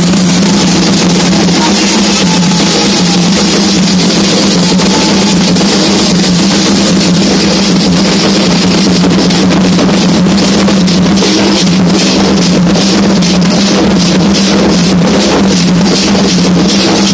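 Loud Candomblé ritual drumming on hand drums, played as a continuous music. Sharp, evenly spaced drum strokes stand out in the second half.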